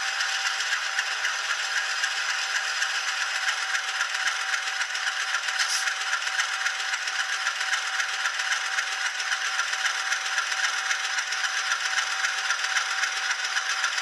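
Diesel engine sound from an ESU LokSound 5 Micro decoder, played through the tiny speaker of an N-scale locomotive as it creeps along at speed step one. The sound is a steady, tinny, rattling engine run at low throttle.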